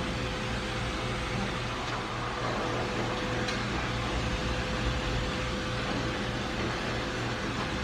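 Pet grooming dryer blowing steadily on its lower setting, a constant rush of air with a faint hum.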